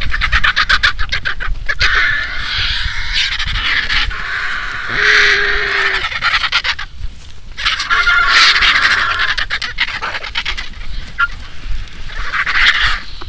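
A crowd of griffon vultures squabbling at a carcass, giving harsh hissing and rasping calls in dense, overlapping bursts, with a short lull about seven seconds in.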